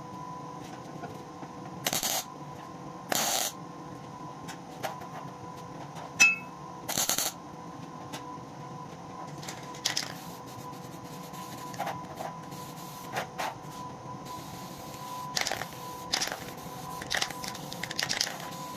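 Aerosol spray-paint can hissing in short bursts, several spaced apart and then a quick run of them near the end, over a faint steady hum. The bursts are the coat of silver paint going onto a small welded nut-and-bolt sculpture.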